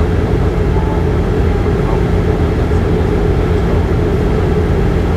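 Steady cabin drone of a Bombardier Q400's Pratt & Whitney PW150A turboprop and six-bladed propeller in flight, heard inside the cabin by the wing. A deep hum with a steady, higher propeller tone over it, even throughout.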